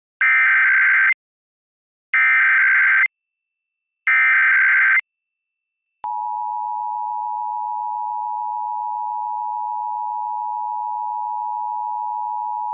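Emergency Alert System test: three one-second, modem-like bursts of SAME header data, about a second apart, then about six seconds in the steady two-tone attention signal starts and holds without a break.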